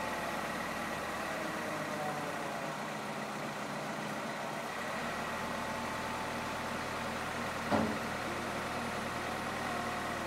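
Vehicle engine idling steadily, with a single short knock about three quarters of the way through.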